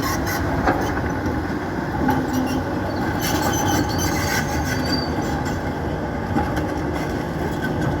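Tracked excavator on the move, its diesel engine running under a steady rumble of clanking tracks with intermittent metal-on-metal squeaks and creaks, a creak that onlookers take as a sign the machine needs oil.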